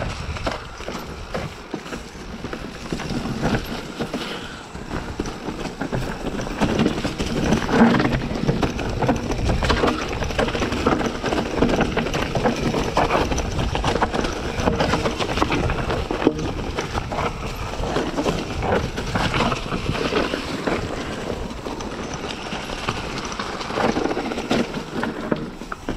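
Mountain bike being ridden over a rocky trail, its tyres and frame clattering over stones with many rapid knocks and rattles.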